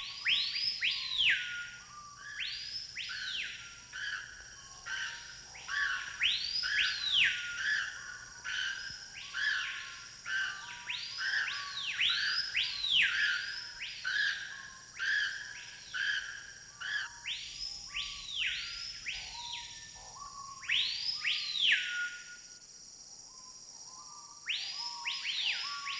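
Jungle birds calling over and over, each call a whistled note that sweeps steeply up and falls back, often two or three overlapping, over a steady high insect drone. The calls pause briefly late on and start again near the end.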